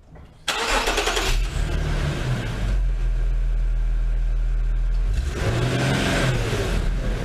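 2010 Infiniti G37's 3.7-litre V6 starting about half a second in, flaring up and settling into a steady idle, then revved, its pitch rising and falling, from about five seconds in.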